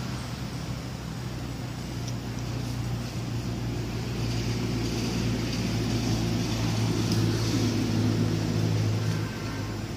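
A motor engine running with a steady low hum, growing louder through the middle and dropping away about nine seconds in.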